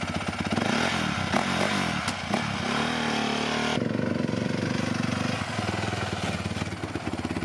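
Dirt bike engine running under throttle, its pitch climbing for a second or so and then dropping sharply about four seconds in as the throttle closes, then running on more steadily.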